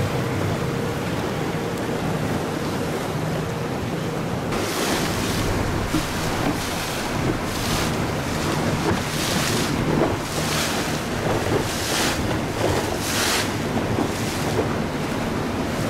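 Small open tour boat under way: the outboard motor's steady drone under wind buffeting the microphone and water rushing past the hull. From about four seconds in, splashes of spray come more than once a second.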